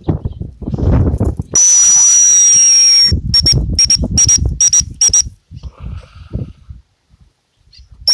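A shrill high whistle held for about a second and a half, then five short blasts in quick succession, over wind buffeting the microphone.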